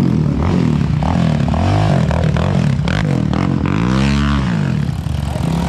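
ATV engine revving in blips over a running engine, the strongest about four seconds in, rising and then falling in pitch over about a second.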